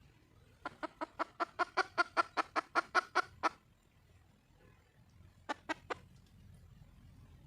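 Junglefowl hen calling for a mate: a quick run of about fifteen clucks at roughly five a second, then after a pause a short burst of three more clucks.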